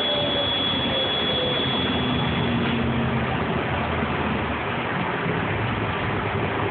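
New Flyer DE40LFR diesel-electric hybrid transit bus running, heard from inside the passenger cabin as a steady drive noise. A steady high whine stops about three seconds in.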